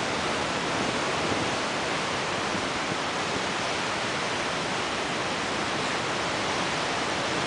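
Large winter ocean waves breaking and white water washing over a rocky shore: a steady, unbroken rush of surf.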